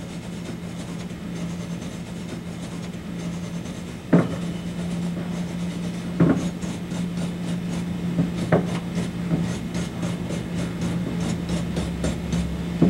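Stainless steel wire brush scrubbing back and forth over a fresh weld on a stainless tube tee, scratching off the light heat discoloration left by welding. A steady low hum runs underneath, with a few sharper knocks of the brush against the tube.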